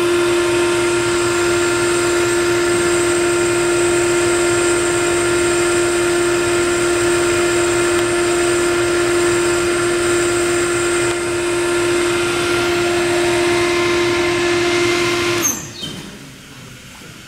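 Kaeser SM-6 5 hp rotary screw air compressor running with a steady hum and one strong held tone. Near the end it is switched off: the sound drops away quickly as it winds down, leaving a faint hiss.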